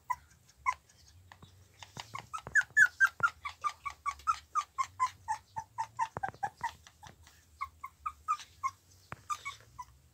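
Young puppy whimpering in a quick run of short, high yelping cries, about four a second, sliding a little lower in pitch as it goes on, then a few scattered cries near the end.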